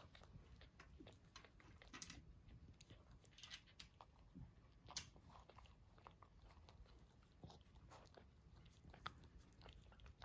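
Cavalier King Charles Spaniel mother licking her newborn puppy: faint, irregular wet licking and mouth-smacking clicks.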